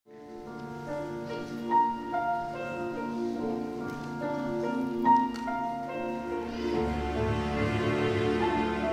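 Instrumental music introducing a song: held chords with a few accented melody notes, and a deeper bass joining near the end.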